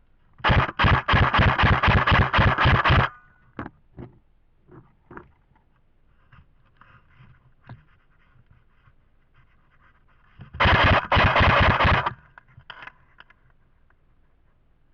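Airsoft rifle firing two long full-auto bursts of rapid, evenly spaced shots: one of about two and a half seconds near the start, and a shorter one of about a second and a half about ten seconds in. Scattered single clicks and faint scuffing fill the gap between the bursts.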